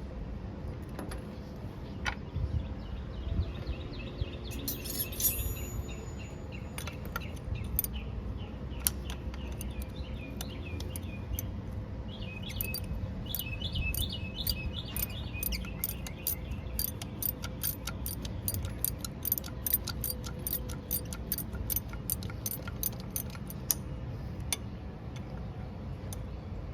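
Hand tools working bolts out of metal: scattered clinks, then a long run of steady ratchet-like clicking, about four clicks a second, from the middle of the stretch to near its end, over a steady low rumble. Birds chirp now and then in the background.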